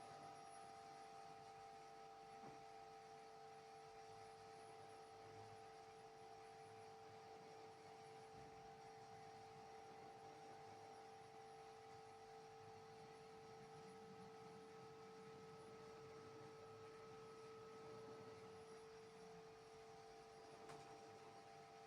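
Faint steady hum made of several held tones, the lowest and strongest a mid-pitched drone, unchanging throughout.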